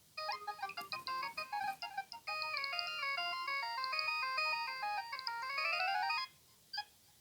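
Nokia 3120 mobile phone playing one of its ringtones: a fast melody of bright electronic notes, then held notes and a quick rising run before it cuts off about six seconds in. A short beep follows near the end.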